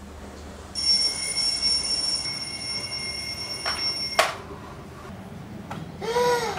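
Alarm clock ringing for about three and a half seconds, then cut off abruptly with a click as it is switched off. A brief sound rising and falling in pitch follows near the end.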